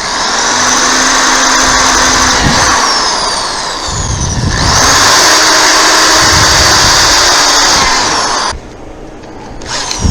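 Power drill boring holes through an aftermarket plastic dirt-bike fender, in two steady runs with a short dip about four seconds in, stopping about eight and a half seconds in.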